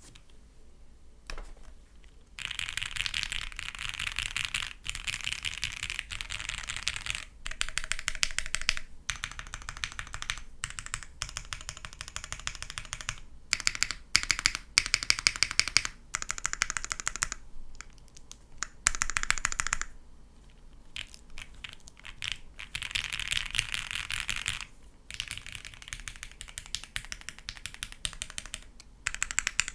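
Fast typing on a gasket-mounted custom mechanical keyboard (Table Gadget 67) with Krytox 205g0-lubed Gateron Yellow linear switches, a PC plate with foam, and CMK keycaps: dense runs of key clacks lasting a few seconds each, broken by short pauses.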